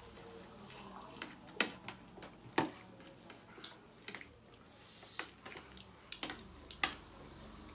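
Spoons and forks clinking and scraping against ceramic plates as people eat: several separate sharp clinks a second or so apart, with a brief scrape about five seconds in.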